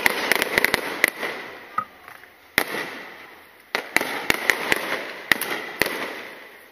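Aerial firework shells bursting overhead: a quick volley of sharp bangs in the first second, then single reports every half second or so, each trailing off in a rolling echo.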